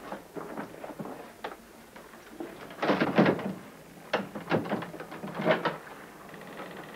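A series of knocks and clunks in several short clusters, the loudest about three seconds in.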